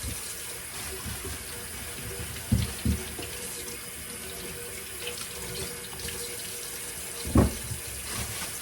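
Kitchen faucet running steadily into a sink, with a few dull knocks: two close together about two and a half seconds in and one near the end.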